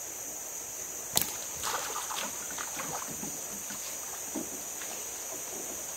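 Water splashing and sloshing close by as a freshly hooked fish is drawn in on a float rig, with a sharp click about a second in and a smaller splash a few seconds later. A steady high-pitched insect drone runs underneath.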